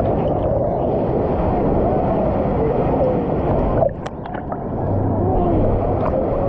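Muffled, steady wash of water with distant voices and shouts of a crowd in a waterpark pool; the water noise drops away suddenly about four seconds in, then builds back.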